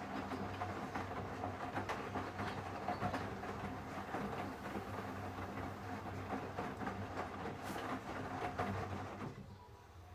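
Hisense washing machine running its wash cycle: a steady motor hum with a faint whine and constant clicking and rattling from the turning drum, which falls away near the end.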